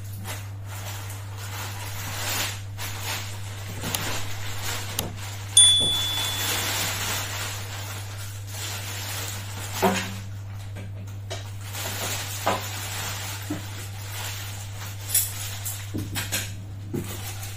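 Plastic bags and cardboard packaging rustling and crinkling as a power tool is unpacked, with scattered knocks as parts are set down on a glass tabletop, over a steady low hum. About five and a half seconds in comes a sharp hit with a brief ringing tone, the loudest sound.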